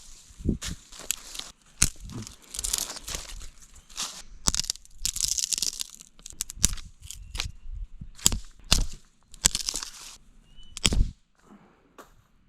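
Dry sticks and kindling snapped and crunched by hand for a campfire, in irregular sharp cracks and rustling bursts with short pauses between.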